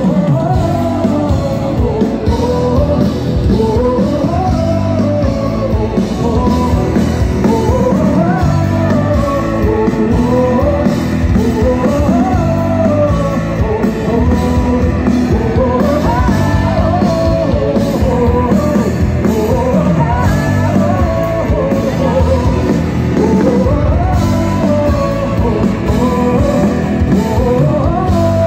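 Live band playing rock music loud through the PA: a singer's melody over electric guitars and keyboard.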